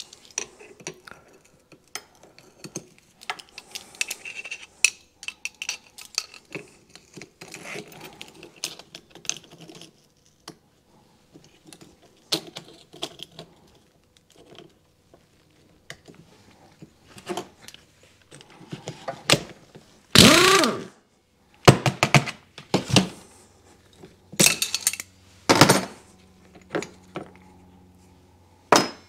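Metal hand tools and engine parts clinking and knocking on a workbench while a motorcycle engine is taken apart: scattered light clicks, then a scrape about a second long two-thirds of the way through and a run of louder clanks after it.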